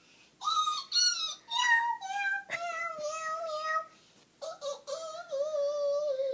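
A young boy imitating a cat with his voice: a run of drawn-out, wavering meows, with a short break about four seconds in before a long final meow.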